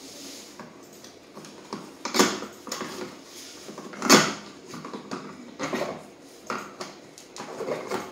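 Irregular clicks and knocks of a plastic toy-bike wheel and its metal hub being handled and turned by hand while a hex key is worked in the hub; the loudest knocks come about two and four seconds in.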